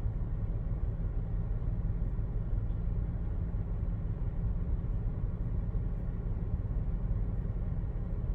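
Toyota Sienna's 3.5-litre V6 idling with a steady low rumble. The engine has an intermittent misfire on cylinders 3, 5 and 6, which the mechanic traces to dirty fuel injectors.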